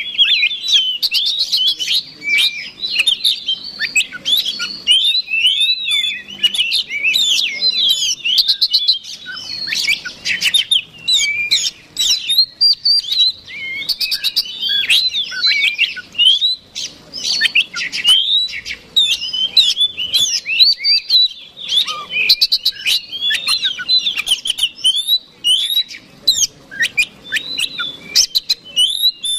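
Oriental magpie-robin (kacer) singing a rapid, almost unbroken stream of varied whistles, chirps and trills with only brief pauses. It is the persistent, aggressive fighting song that kacer keepers use as a lure.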